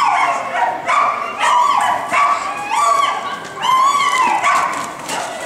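A dog barking in a run of high-pitched yips, about one every second or a little faster, each bark short with a slight rise and fall in pitch.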